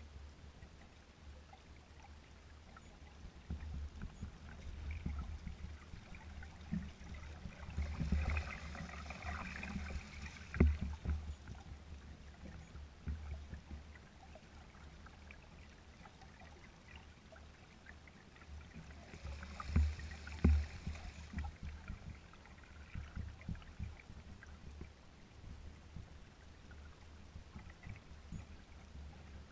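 Small waves lapping and slapping against a kayak's hull as it sails slowly, with wind rumbling on the microphone. The splashing grows louder twice, about 8 and 20 seconds in, with a few sharp slaps.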